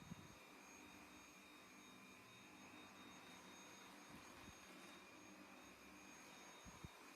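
Near silence: faint steady high tones and a low hum, with a few soft low thumps about four seconds in and again near the end.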